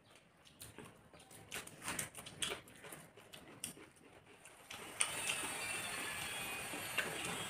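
Soft irregular smacks and clicks of people eating biryani by hand: fingers working the rice and mouths chewing. About five seconds in, a louder steady hiss with thin high tones starts suddenly and holds.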